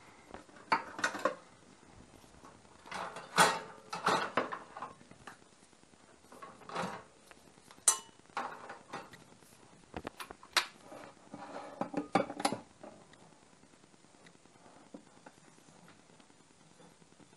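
Kitchen utensils and cookware clinking and clattering as they are handled at a stainless steel sink and wire dish rack: a run of sharp knocks and clatters during the first twelve seconds or so.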